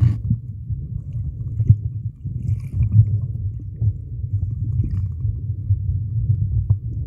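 Muffled, churning underwater rumble of pool water moving around a submerged camera, with a few soft knocks and a faint higher crackle about two and a half seconds in.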